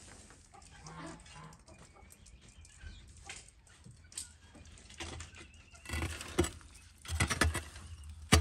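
A wooden stick stirring and poking the burning charcoal at the bottom of a tandoor. It comes in loud, rough crunching and scraping bursts starting about six seconds in.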